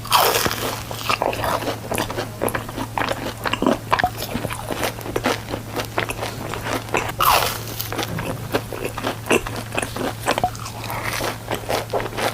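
Close-miked crunchy food being bitten and chewed: loud crunching bites right at the start and again about seven seconds in, with a dense run of smaller crunches between them. A steady low hum lies under it.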